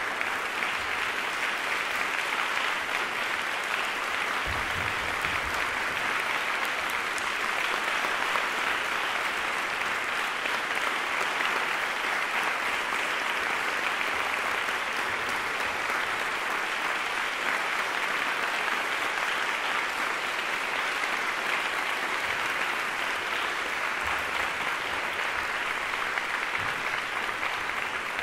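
Steady, dense applause from a concert hall audience, with the percussionists on stage clapping along.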